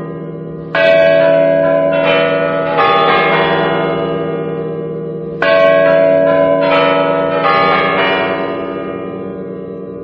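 Bells struck in two groups of three or four strokes, each ringing on with many steady tones and slowly fading away.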